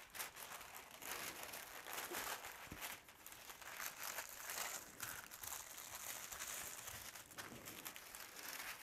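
Rough, heavy paper pieces of a vintage sewing pattern rustling and crinkling faintly as they are smoothed and folded by hand.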